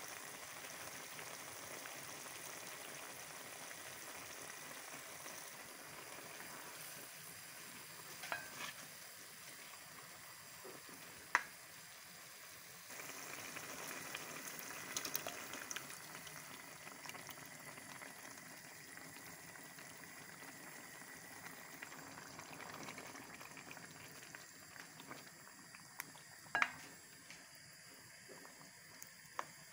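Chicken and vegetables simmering in liquid in a stainless steel pan, a faint steady bubbling hiss, with a few sharp clicks scattered through.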